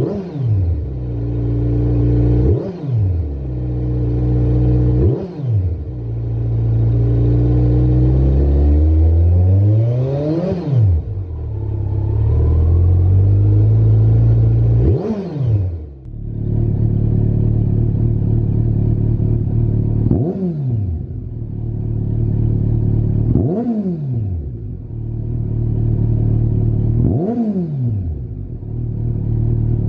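Kawasaki Z900's 948 cc inline-four exhaust through a Lextek SP2 aftermarket silencer, idling and blipped on the throttle. About eight quick revs rise sharply and drop straight back to idle, with one slower, longer climb about ten seconds in.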